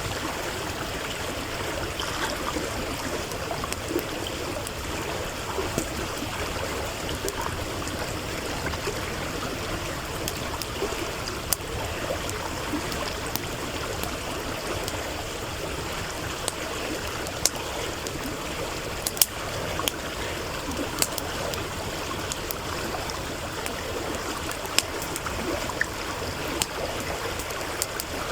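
Stream running steadily, with sharp pops and crackles from a wood campfire scattered over it.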